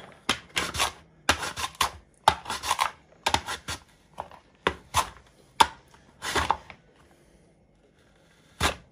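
Chopping on a board: a knife striking a cutting board in about fifteen sharp, irregularly spaced strokes that stop about seven seconds in, with one more knock near the end.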